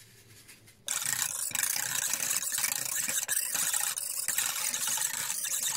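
Warm milk and water being mixed with a spoon into dry yeast in a bowl: a steady scraping, sloshing noise with small clicks. It starts about a second in and cuts off abruptly just before the end.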